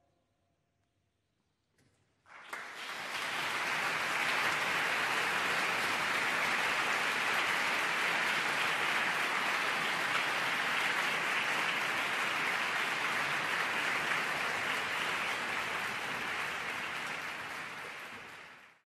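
Audience applauding, breaking out about two seconds in after a short hush in which the choir's last chord dies away, holding steady, and cut off abruptly at the end.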